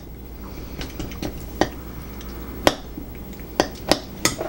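Table knife and fork clinking and scraping against plates and bowls: a handful of sharp, irregular clinks, the loudest about two and a half seconds in.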